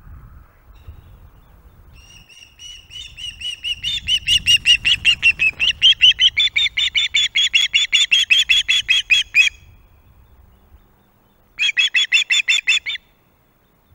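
Osprey calling: a long run of shrill, rapidly repeated chirps, about five a second, that climbs a little in pitch and stops abruptly. A second, shorter run of chirps follows near the end.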